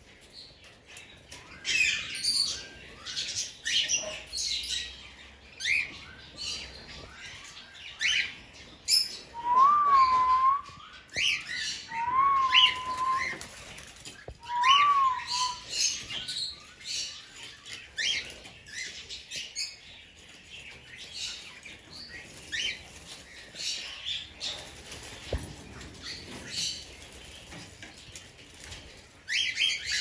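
A flock of cockatiels chirping and calling in a stream of short, sharp chirps, with three clear whistled notes, each rising then dipping, between about nine and fifteen seconds in.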